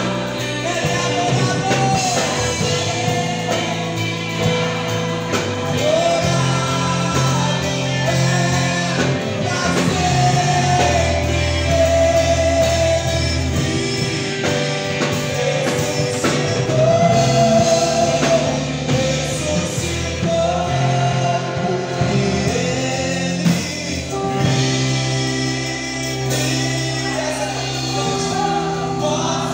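Gospel song performed live: a man singing into a microphone through the church PA, with long held notes, over steady instrumental backing.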